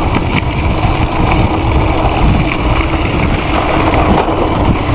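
Steady wind rush on the microphone and the tyre and frame rattle of a Gios FRX mountain bike rolling fast downhill over a rough, potholed dirt road.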